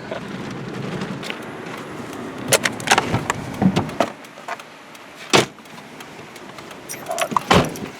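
A car's interior with a low running rumble that drops away about four seconds in, then a series of clicks and knocks and a heavy car door thump near the end.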